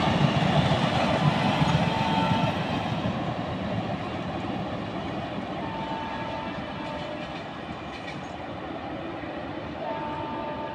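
Indian Railways passenger coaches rolling along the track with a clickety-clack, loud at first and then fading as the train moves away. A faint high whine comes and goes a few times.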